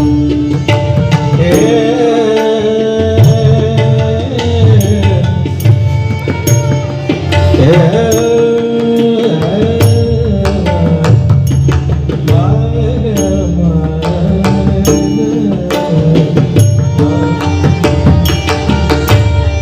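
Devotional bhajan music: tabla keeping a steady rhythm under a sustained, gliding melody, with regular sharp strikes throughout.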